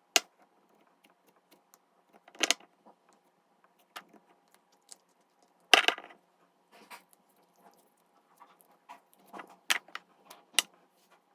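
Scattered sharp clicks and light rattles at irregular intervals, with the loudest a little after the start, about six seconds in, and twice near the end.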